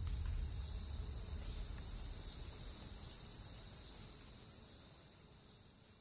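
Rainforest insect chorus: a steady, high-pitched trilling over a faint low rumble, fading out gradually.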